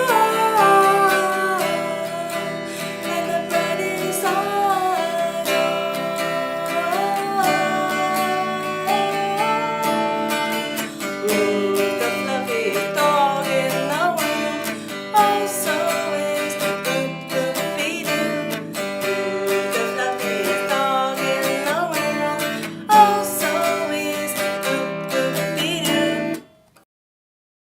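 Acoustic guitar strummed with a voice singing a light, silly pet song; the music cuts off about a second before the end, leaving silence.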